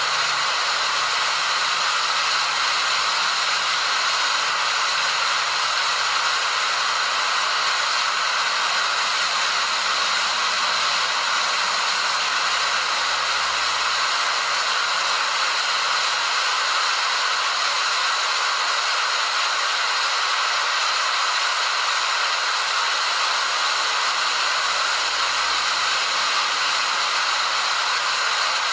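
Waterfall rushing steadily: an even hiss of falling water with little low rumble and no change throughout.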